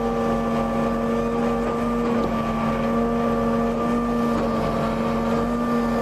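Volumetric concrete mixer truck running at a steady speed: a constant hum whose pitch holds steady throughout.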